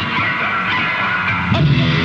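Psychobilly rock song with electric guitar. The low bass notes drop out for about a second and a half, then come back.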